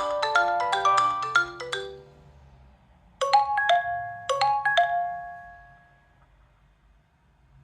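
Stock ringtones of a Nokia 3.1 Plus. A quick marimba-like run of notes ends about two seconds in, and after a short pause a different tone plays two short bell-like chimes about a second apart that ring out and fade.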